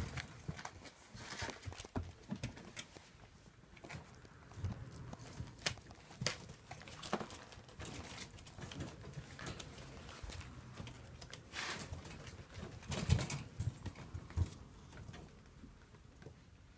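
Rough collie puppies moving about, with an irregular patter of small paws and claws on the floor and scattered light knocks and scuffles; a louder flurry of knocks comes about 13 seconds in.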